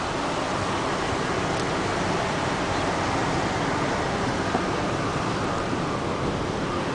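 Steady rushing noise of wind on the microphone and small waves washing against lava rocks at the shore.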